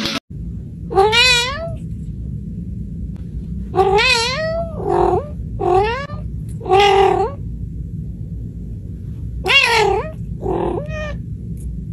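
A cat meowing about eight times in three short runs. Some meows are drawn out, with a wavering pitch. A steady low background hum runs underneath.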